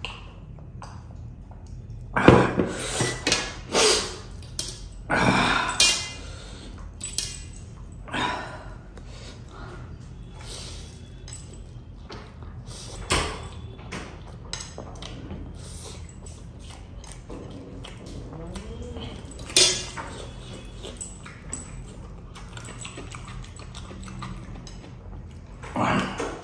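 Close-up eating sounds of a man eating a platter of spicy Korean instant noodles: loud slurps and mouth noises, with a metal fork against the steel platter. The bursts bunch up in the first few seconds, then come singly every few seconds.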